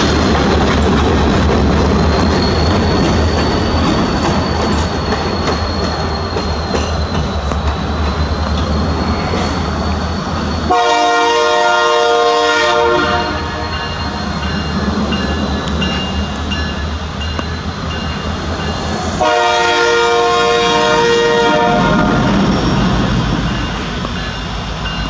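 BNSF diesel locomotives rumbling steadily as they pull a tank car, with a thin high wheel squeal early on. Two long chords of the locomotive horn sound about 11 and 19 seconds in, sounding for the grade crossing ahead.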